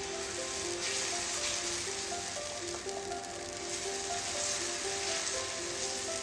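Food sizzling as it fries in a hot pan, a steady crackling hiss. Soft background music with a melody of short held notes plays over it.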